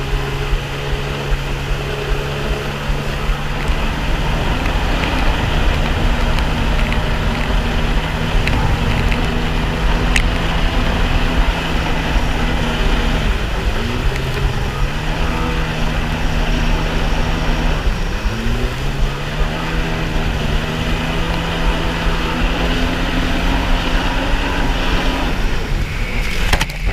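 Yamaha SuperJet stand-up jet ski's engine running hard at speed, a steady drone over the rush of wind and water spray. Twice, about halfway through, the engine pitch dips briefly and climbs back.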